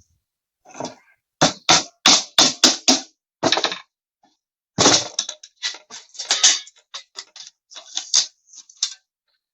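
Quick run of sharp knocks on plywood, about three a second, then a longer scrape and a scatter of lighter clicks and taps as a plywood breeding box and its channel strips are fitted together.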